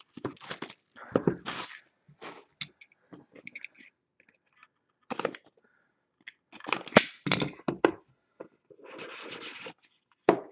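Clear plastic shrink-wrap crackling and tearing as it is stripped off a trading-card box, followed by a box cutter slicing through the wrap and the cardboard box being handled, in irregular crinkly bursts.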